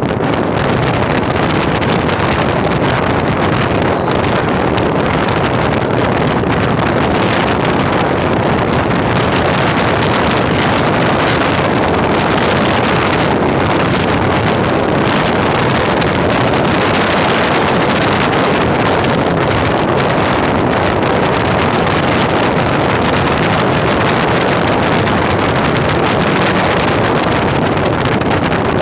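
Steady, loud rushing noise of a vehicle on the move, with wind buffeting the microphone.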